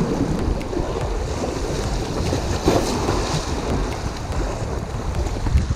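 Wind buffeting the microphone in a steady low rumble, over lake waves washing against the shore.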